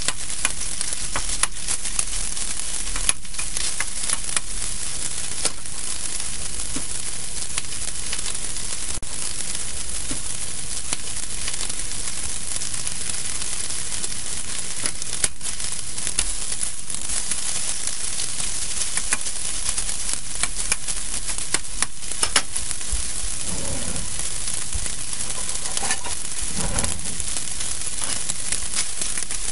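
Marinated chicken pieces sizzling steadily in hot peanut oil in a steel wok. A metal spatula stirs them near the start, and scattered sharp clicks sound through the frying.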